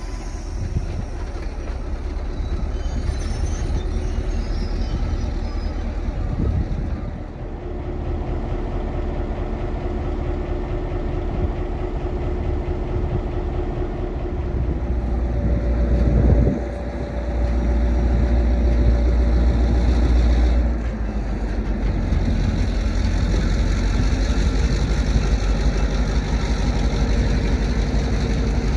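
Diesel locomotive engine running with a steady low rumble as the train moves past, passenger cars rolling along the track. It swells louder for a few seconds just past the middle, then eases back.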